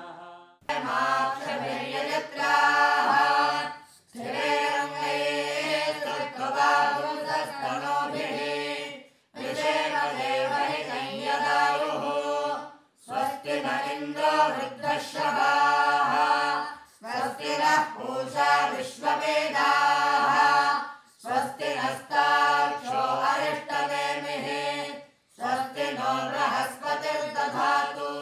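Vedic Sanskrit mantras chanted by voice, in phrases of about four seconds with brief breaks between them.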